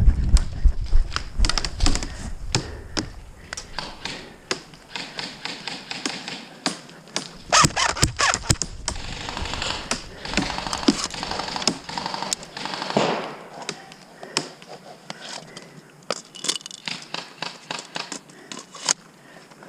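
Airsoft guns firing: scattered single shots and short rapid bursts of sharp clicks and pops, thickest in the middle of the stretch.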